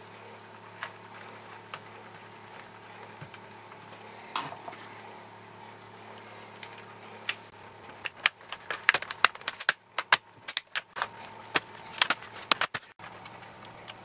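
Clicks and knocks of a Toshiba Satellite L505D laptop's plastic casing being handled during reassembly: a few light taps at first, then about halfway through a dense run of sharp clicks and knocks as the cover is pressed into place and the laptop is turned over. A steady low hum runs underneath.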